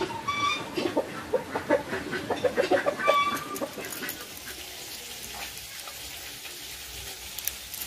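Chickens clucking, with a couple of short, high pitched calls among rapid clucks in the first three seconds; the clucking dies away about four seconds in, leaving faint background noise.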